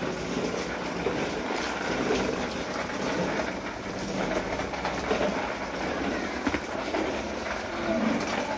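Plastic wheels of a toy dump truck rolling and rattling over paving stones as it is pulled along, a steady clattering rumble with many small clicks.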